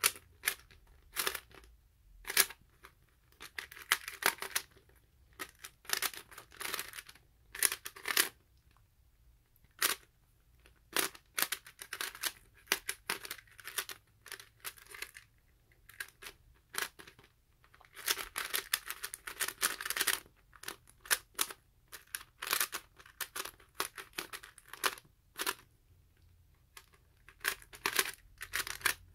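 LEGO-brick 3x3 puzzle cube being turned fast by hand during a timed solve: irregular bursts of plastic clicking and scraping with short pauses between. The layers keep catching and locking up.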